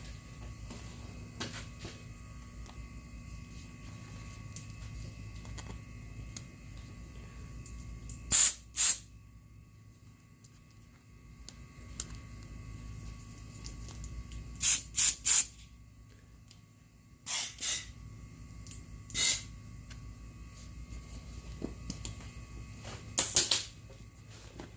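A run of short hissing sprays, about nine in all: a pair, then three in quick succession, then several single ones, over a low steady hum.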